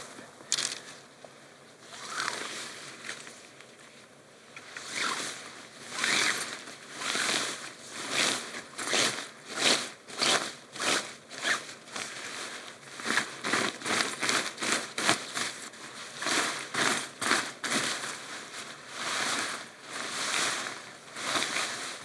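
A hiker's footsteps crunching and rustling at a steady walking pace, a step every half second to a second, sparse at first and regular from about five seconds in.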